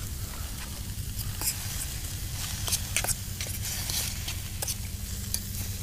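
Food sizzling in a titanium fry pan over a wood fire, with scattered sharp pops and crackles.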